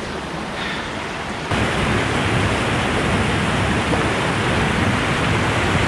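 Steady rush of a rocky woodland creek, louder from about a second and a half in.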